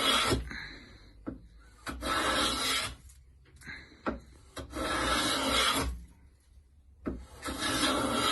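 Hand plane with a freshly sharpened iron taking shavings off a wooden board in strokes about a second long: one ends just as the sound begins, then three more follow, with light knocks between them.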